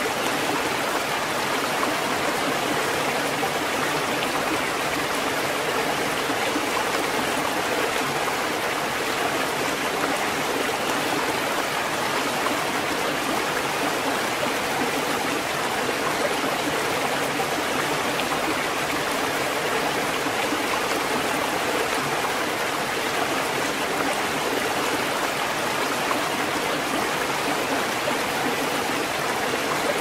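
Continuous rushing water, an even hiss with no separate wave surges swelling and falling away.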